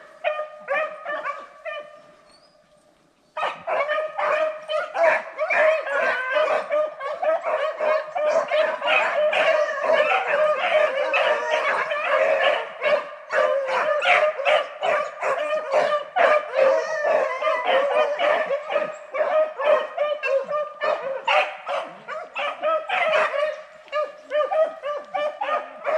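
A pack of beagles baying on a rabbit's trail, many voices overlapping in rapid, continuous cries. The baying drops away about two seconds in, then returns all at once a second or so later.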